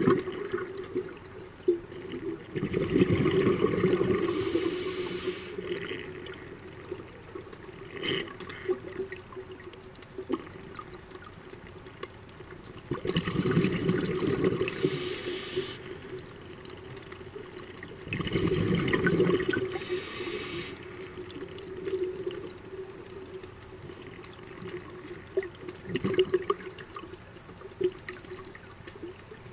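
Scuba diver's regulator breathing heard underwater: three long rushes of exhaled bubbles, a few seconds each, with quieter water noise between them.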